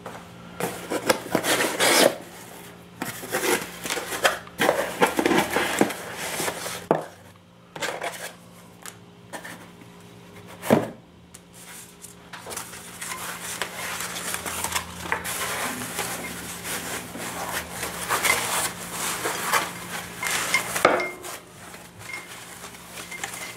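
Cardboard shipping box being opened and a rifle barrel assembly lifted out of its foam wrap: handling noise of cardboard and foam packing sheet in irregular bursts, with a sharp knock about eleven seconds in and a long stretch of rustling foam near the end. A faint steady hum runs underneath.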